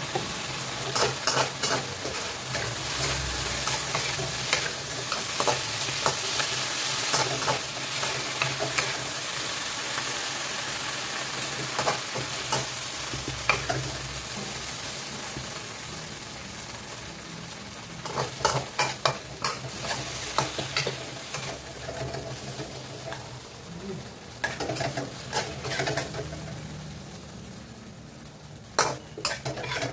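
Beef and green vegetables sizzling as they are stir-fried in a wok, with a metal spatula repeatedly scraping and clanking against the pan in short bursts of strokes. The sizzle is steady at first and dies down over the second half. Near the end the spatula scrapes as the food is scooped out.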